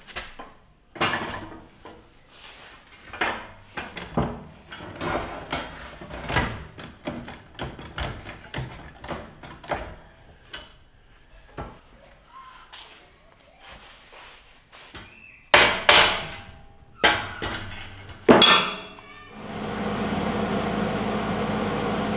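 Steel bracket being handled and fitted onto a Dana 60 axle housing: a run of irregular metal clanks and knocks, with a few louder sharp strikes about two thirds of the way in. A steady hum takes over for the last few seconds.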